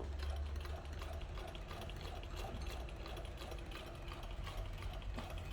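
Antique Singer 15 sewing machine running, its mechanism ticking in a steady, even rhythm over a low hum.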